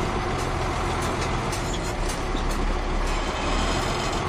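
Caterpillar 3406 inline-six diesel engine of a 1994 Ford L9000 truck running steadily, with a few light clicks on top.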